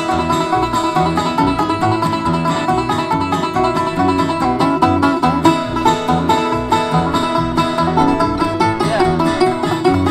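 Acoustic bluegrass band playing an instrumental break on banjo, mandolin, upright bass and guitar, with the banjo out front.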